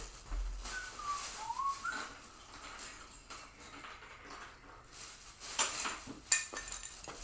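Handling noises: rustling and light clinks of small hard parts, with a few short high squeaks about a second in and a sharp click near the end.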